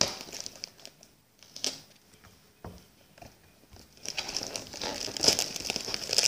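Plastic shipping mailer crinkling as packing tape is picked at and peeled off it: scattered crackles at first, then steady, louder crinkling from about four seconds in.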